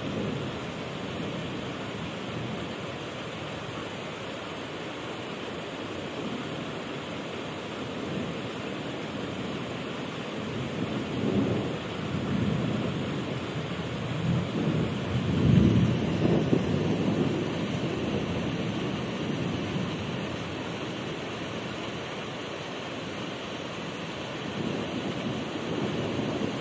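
Thunderstorm: steady heavy rain with low rolling thunder, building in a couple of rumbles and loudest about halfway through.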